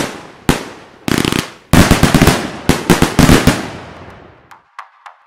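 Consumer fireworks cake (Kometa Bhutan, 25 shots) firing: aerial shells bursting one after another, each burst a rapid run of cracks, the densest run between about two and three and a half seconds in. The cracking dies away by about four and a half seconds.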